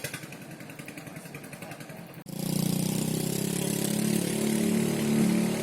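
An engine running steadily, starting abruptly about two seconds in over a quieter background.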